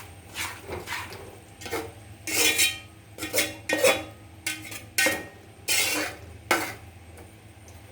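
A spoon stirring a thick jackfruit-and-jaggery mixture in a cooking pot, scraping and clinking against the pot in a run of irregular short strokes. The stirring keeps the jaggery from catching and burning on the bottom.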